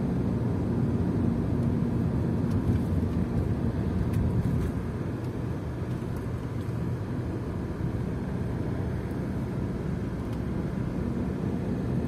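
Steady low rumble of engine and tyre noise heard inside a car's cabin while driving, easing slightly about four seconds in.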